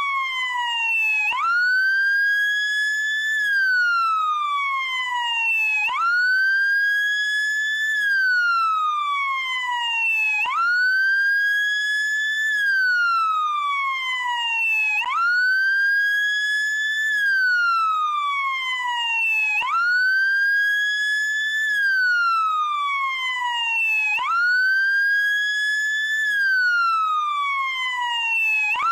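SAMU ambulance motorcycle siren on its wail setting. It sounds continuously, each cycle sweeping quickly up in pitch, cresting, then sinking slowly before jumping straight back up, repeating about every four and a half seconds.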